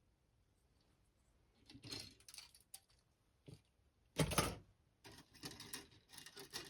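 Plastic model-kit parts trees and their bags being handled: light rattling and crinkling in short bursts, with one louder knock a little past four seconds in.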